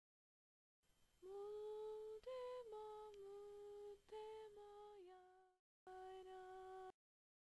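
A person humming a short, slow tune of about seven held notes, then after a brief pause one more held note.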